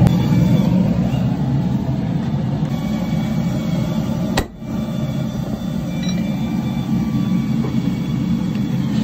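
Gas forge burner running with a steady low roar, cut off briefly by a click and a short dip about four and a half seconds in.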